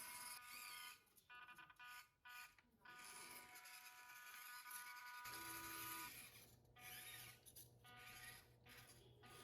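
Faint, steady whine of the RC truck's small N20 geared DC motor and gearbox, with several brief dropouts. About five seconds in, a low hum joins and the whine changes.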